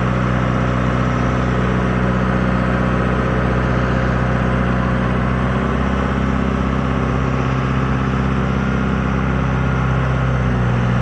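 John Deere 5093E tractor's four-cylinder turbo diesel running at a steady, even speed as the tractor drives slowly, its pitch shifting slightly about halfway through.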